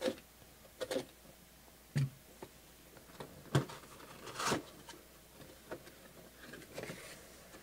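A cardboard box being handled and opened by hand: scattered taps, scrapes and rustles of cardboard, with a longer scraping rustle about four and a half seconds in.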